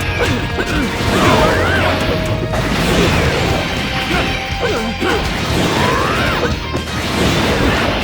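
Video game fight sound effects: a dense run of hits, smashes and whooshes over background music.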